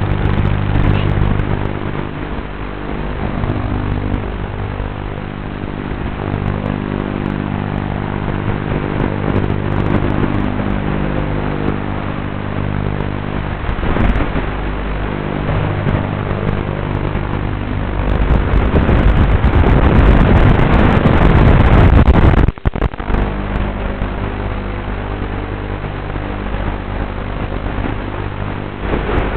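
QAV210 racing quadcopter's motors and propellers in flight: a steady hum with a louder rushing surge for a few seconds about two-thirds of the way through, which cuts off sharply before the hum returns.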